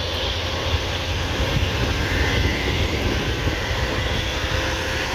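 Road traffic: a large coach's diesel engine running steadily as the bus drives away, with motor scooters passing close by.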